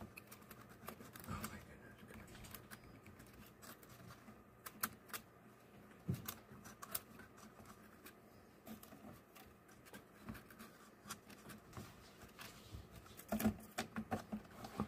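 Faint, scattered small clicks and taps of hands handling a Raspberry Pi board, its flat ribbon cables and a metal frame while fitting them together, with a short cluster of taps near the end.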